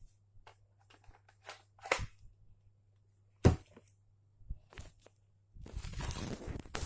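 Handling sounds of a battery adapter and batteries being fitted onto a cordless drill: scattered light plastic clicks and knocks, one sharp click about three and a half seconds in, then about a second of scraping and rustling near the end.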